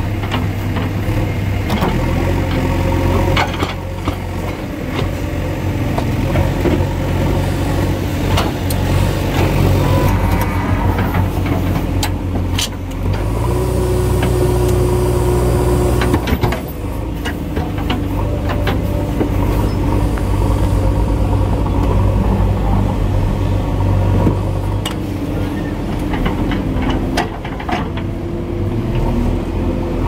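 Diesel engines of a JCB backhoe loader and a Tata 3718 tipper truck running hard under load as the backhoe bucket pushes the truck, which is stuck in loose dirt and struggling to move. The engine note steps up and down in pitch several times, with sharp clanks and knocks scattered through.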